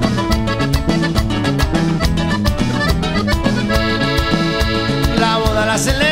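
Background music: accordion-led Latin American music over an alternating two-note bass and a steady beat.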